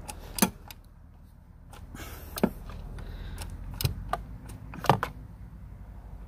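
Wrench clicking as it snugs down the oil filter housing cap: a handful of sharp clicks at uneven spacing over a low steady hum.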